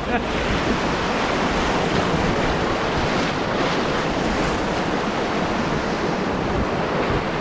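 Steady rushing noise of river water around a raft, mixed with wind on the microphone.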